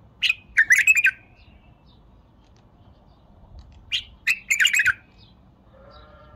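White-eared bulbul singing: two short, loud phrases of quick, rich whistled notes, one at the start and another about four seconds in.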